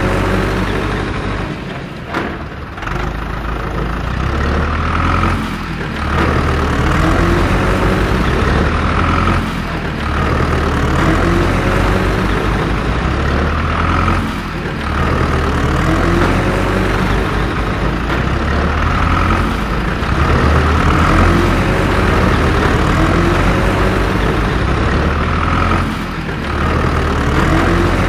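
Heavy tractor engine sound running steadily, dipping and swelling a little every few seconds.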